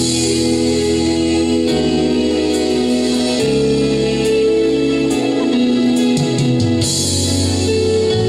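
Instrumental break of a song's backing track playing over loudspeakers: sustained keyboard chords over a bass line, the chord changing about every two seconds, with no singing.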